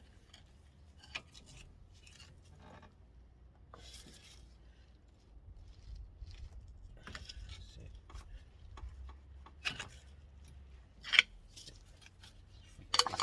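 Scattered metallic clicks and scrapes of hand tools working on a car's front brake caliper, prising the caliper piston back with a screwdriver, with a few sharper clinks near the end.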